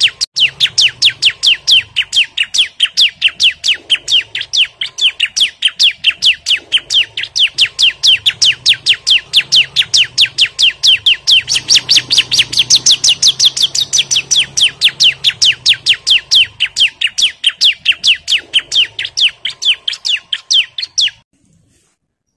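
A bar-winged prinia (ciblek) calls in a fast, unbroken series of sharp, high chirps, about four to five a second. This is the bird's loud, agitated calling to challenge a rival. The series cuts off suddenly about a second before the end.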